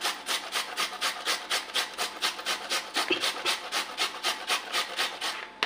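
Peeled raw potato being grated on a stainless steel box grater: quick, even rasping strokes, about five a second, that stop near the end.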